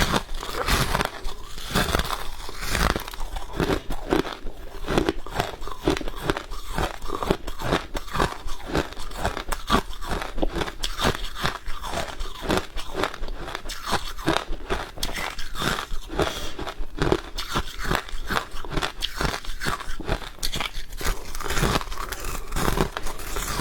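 Freezer frost being bitten and chewed: a dense, unbroken run of sharp, crisp crunches, several a second.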